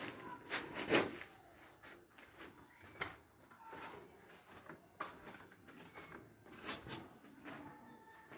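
Scattered knocks and scuffs, loudest about a second in, with a few more spread through.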